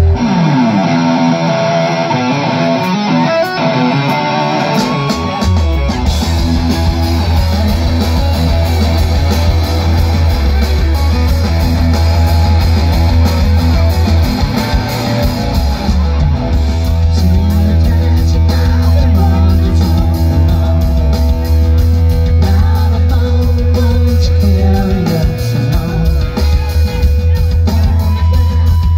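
Live rock band playing loud: electric guitars alone at first, then bass and drums come in about five and a half seconds in and the band plays on together.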